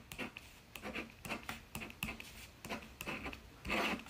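Pen writing on a paper notepad: a run of short scratchy strokes as the numbers are written, then a longer scratch near the end as the answer is circled.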